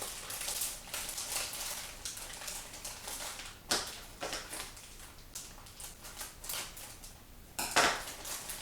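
A packaging packet being opened and its paper contents handled: crinkling and rustling, with a sharp crackle about three and a half seconds in and a louder one near the end.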